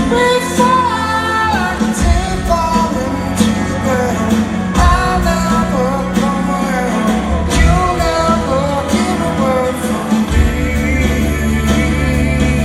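Live rock band playing a song, with a sung lead vocal over electric guitars, bass and drums.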